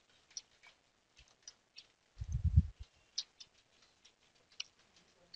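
Faint computer mouse clicks, scattered sharp ticks as menus are opened and items chosen, with one louder low, muffled thump about two seconds in.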